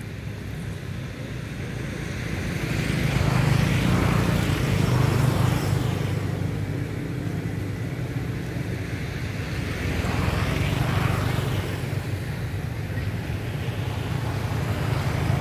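Motor vehicle traffic: a steady low engine drone, with two vehicles passing, the louder one swelling about three seconds in and fading near six seconds, the second about ten seconds in.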